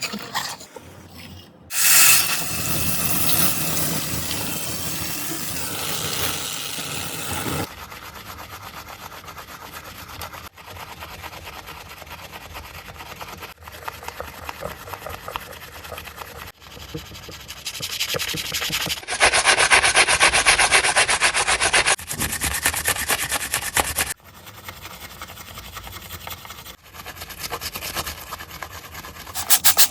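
Scrubbing and rubbing on a JCB excavator's dirty surfaces, in a series of short clips that start and stop abruptly. A louder stretch of steady hissing comes about two-thirds of the way through.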